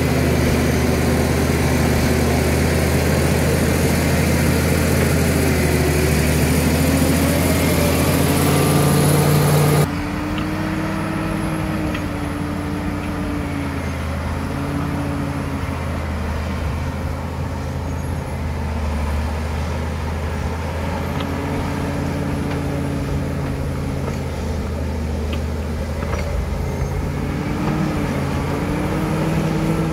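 Caterpillar D7 bulldozer's diesel engine working under load as it pushes soil and rock. For the first ten seconds it is close and loud. After a cut it is heard from farther off, its pitch dipping and rising with the load and climbing again near the end.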